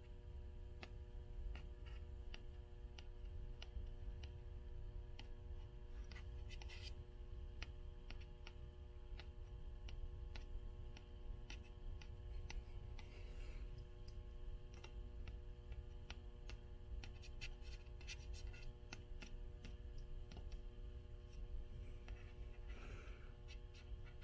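Fingernails lightly tapping old book covers, about two taps a second, with denser clicking later and a few short scratches on the cloth and paper, over a faint steady hum.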